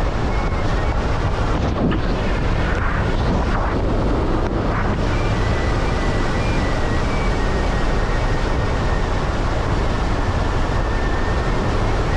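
Steady wind and road noise of a pickup truck driving down a gravel road, heard from a camera mounted on the hood, with wind rushing over the microphone.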